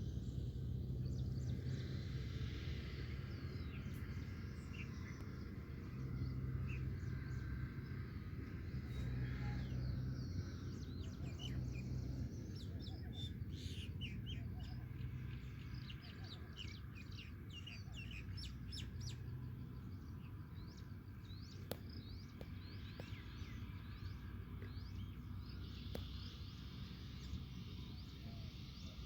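Many small birds chirping over a steady low rumble of rushing floodwater.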